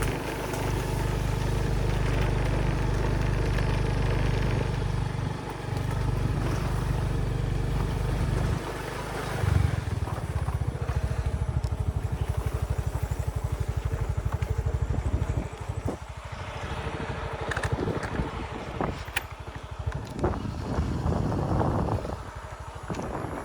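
Motorcycle engine running with a steady low rumble. About eight and a half seconds in it settles into an even, rapid beat, and after about fifteen seconds it drops away into quieter, uneven sounds.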